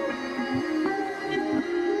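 Background instrumental music: a melody of short held notes.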